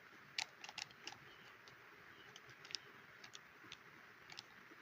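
Faint, scattered clicks of a Skil electric drill's trigger and trigger-lock button being pressed and released, about ten in all; the motor does not run.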